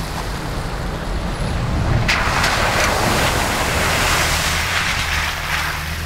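Jeep engine running as it drives into a shallow river crossing, with a rush of splashing water starting sharply about two seconds in and dying down near the end.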